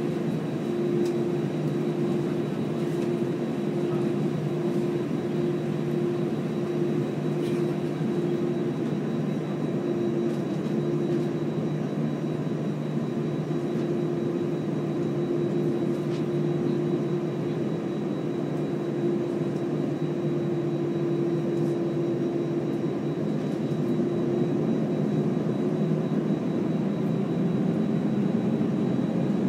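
Cabin noise of an Airbus A320 jet on the ground: a steady engine hum with a held tone, which starts to rise in pitch and grow louder near the end as the engines begin to spool up for take-off.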